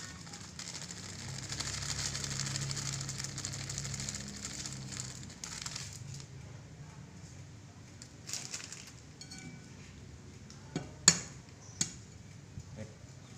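Coarse salt pouring from a plastic packet into a plastic bowl, a steady grainy hiss for about six seconds, then quieter rustling as the salt is spread by hand. Near the end, two sharp clicks less than a second apart.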